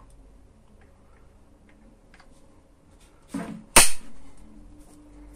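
Light handling clicks from an opened electric door lock being oiled, then one sharp, loud click a little under four seconds in.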